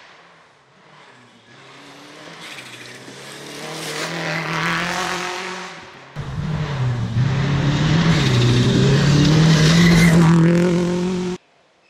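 Rally car engine at high revs, its pitch rising and falling. It builds up louder and fades, then an abrupt cut about six seconds in brings a louder stretch of the engine revving that stops suddenly near the end.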